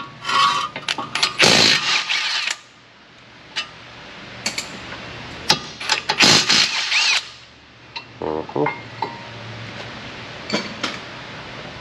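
Ridgid cordless impact wrench spinning out the two caliper bracket bolts of a front brake, in two main bursts about a second and a half and six seconds in, with a few sharp metal clicks between.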